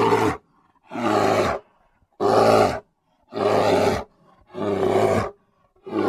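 A bear's low call, repeated about once a second, each call lasting about half a second with a short silence between them.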